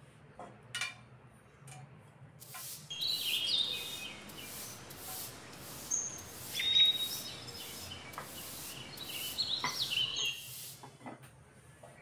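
Whole spices dropped into hot oil in a stainless steel kadai: a few light taps, then the oil sizzles and crackles around them for about eight seconds before it drops away. High short chirping tones sound over the sizzle.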